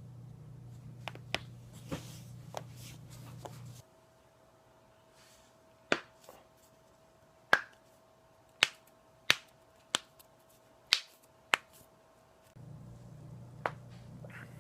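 Back joints cracking: a few faint clicks, then a run of about seven sharp, loud pops roughly a second apart.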